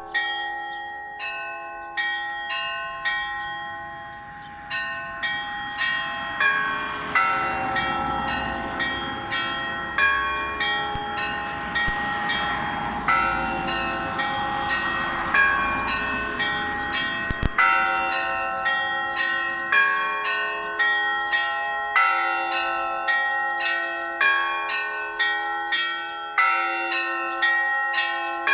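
Russian Orthodox church bells ringing a zvon: small bells struck in quick, rhythmic patterns over the sustained ringing of larger bells. The strikes thin out briefly about four seconds in, then the peal picks up again, and a single sharp click is heard a little past the middle.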